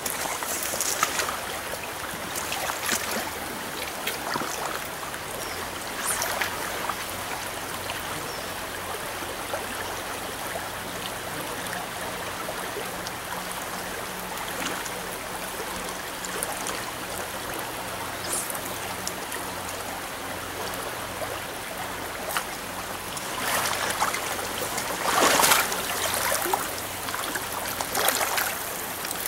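Shallow stream riffle running steadily over rocks. Near the end there is a louder stretch of splashing from someone wading through the water.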